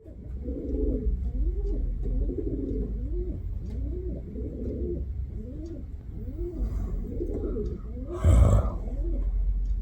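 Pigeons cooing over and over, heard through a wall: several birds' low rising-and-falling calls overlap, with a short loud burst of noise about eight seconds in.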